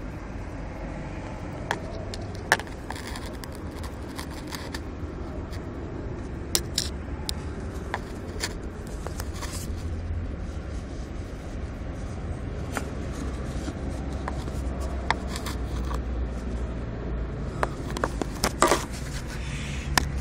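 Handling noise from a phone being moved around by hand: scattered clicks, scrapes and rustles against the microphone, busier near the end, over a steady low rumble.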